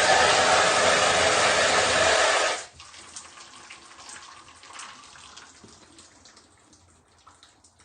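Water rushing steadily from a shower head, cut off suddenly about two and a half seconds in, after which there are only faint scattered ticks.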